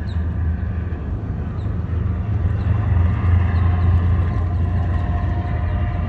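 Car ferry's engines running with a steady low rumble as the ferry comes in toward the dock. The rumble grows louder over the first few seconds.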